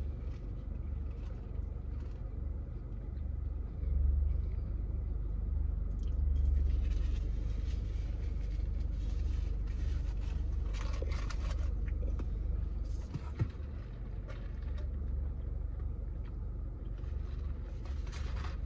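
Steady low rumble of a car's idling engine heard inside the cabin, with brief rustles of paper food packaging and chewing now and then.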